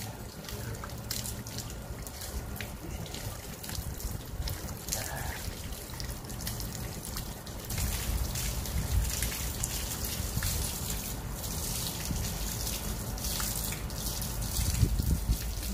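Water from a garden hose running and splashing over a German Shepherd's wet coat and dripping onto the patio tiles, with many small splashes. It gets louder about eight seconds in.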